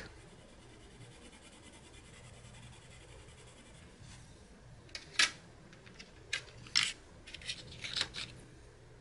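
A coloured pencil scribbling a swatch on toothy drawing paper: quiet at first, then from about four seconds in a run of short, scratchy strokes.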